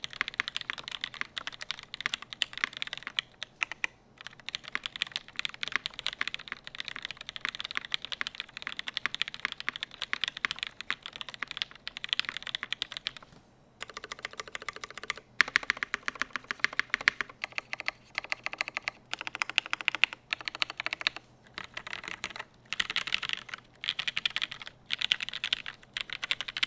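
Fast typing on a tenkeyless mechanical keyboard with lubed, well-worn vintage Cherry MX Black linear switches in an aluminium top-mounted plate and GMK keycaps: a dense run of keystroke clacks, with short pauses about four seconds in and again just before halfway.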